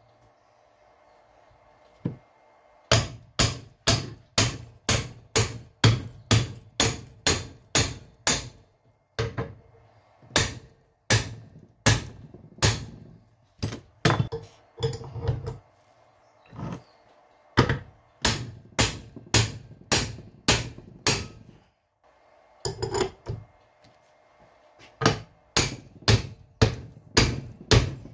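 Repeated hammer blows on the seized piston and gland of a rusty Massey Ferguson GC2310 loader hydraulic cylinder, knocking them out. The blows come about two a second, each with a short ring, in runs of several seconds with brief pauses.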